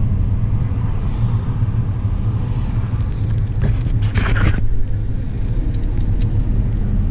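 A car driving in city traffic, heard from inside the cabin: a steady low road and engine rumble. A brief burst of hiss-like noise comes about four seconds in.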